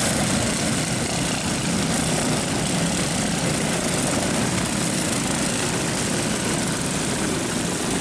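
A pack of dirt-track go-karts with small single-cylinder four-stroke engines running together as the field comes round on a restart. The engines blend into one steady drone in which no single engine stands out.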